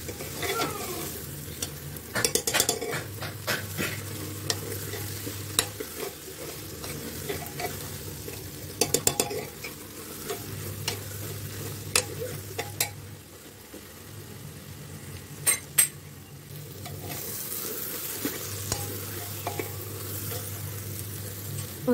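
Steel spoon stirring boiled kidney beans through thick masala in an aluminium pressure cooker, scraping and clicking against the pot in several quick clusters, while the masala sizzles. The beans are frying in the masala with no water added yet.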